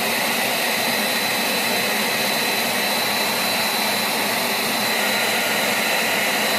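Steady rush of forced air through a home-built forced-air gas forge burner, with a thin constant whine over it, as the gas line is purged after shut-off.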